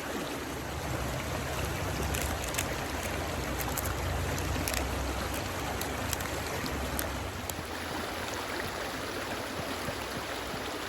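Steady rushing of a flowing stream, with a low rumble through the first several seconds and a few sharp clicks scattered through the middle.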